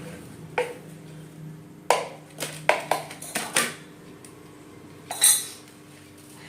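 A utensil knocking and clinking against a plate several times, with one louder, ringing clink about five seconds in: dishware being handled while ghee is scraped and washed with water on the plate.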